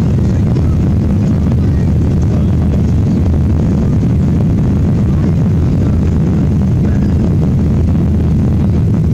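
Steady, deep cabin noise of a Ryanair Boeing 737-800 climbing just after takeoff: its turbofan engines at climb power and the rush of air past the fuselage, heard inside the cabin.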